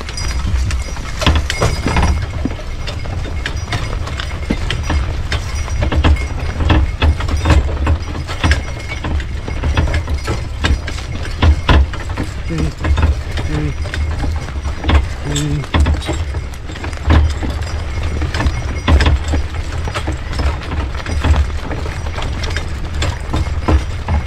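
A pair of driving horses clopping along in harness, with irregular knocks and rattles from the rig they pull over a steady low rumble.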